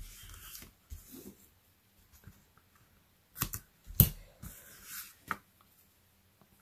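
Paper-backed double-sided tape being pulled off its roll and pressed onto cardstock, with cardstock being handled. A few sharp taps and clicks come through, the loudest about four seconds in.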